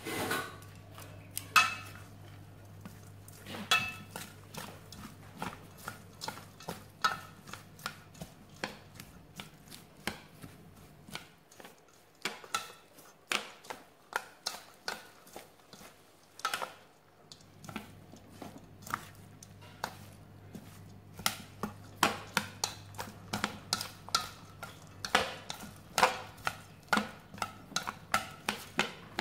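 Chopsticks tossing a shredded vegetable and noodle filling in a stainless steel bowl, clicking and scraping against the metal in irregular taps, sparser about halfway through.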